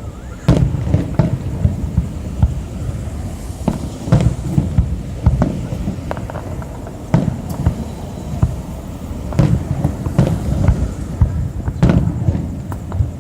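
Aerial fireworks bursting: an irregular run of booms and sharp cracks, sometimes several a second, with a low rumble between them.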